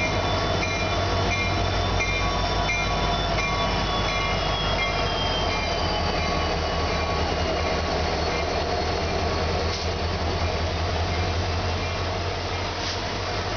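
EMD SD70 diesel-electric locomotives running with a steady low engine hum as the train rolls in slowly at under 15 km/h, with a faint high wheel squeal that slides slowly down in pitch. The sound eases a little near the end as the locomotives move away.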